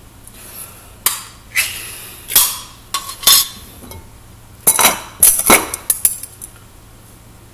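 Sharp metal clinks and clatters, about a dozen in two bursts, as a can of Vienna sausages and a utensil knock against a small stainless steel pot while the sausages are emptied into it.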